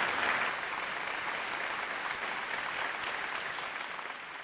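A large audience applauding, loudest at the start and then holding steady.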